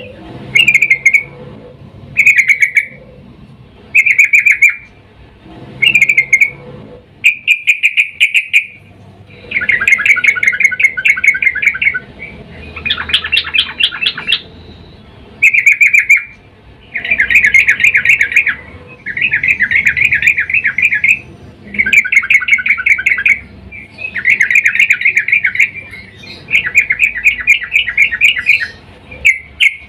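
Female yellow-vented bulbul (trucukan) calling: repeated bursts of rapid chattering notes, short calls about every two seconds at first, then longer trills of one to two seconds each. It is a female's breeding call to the male.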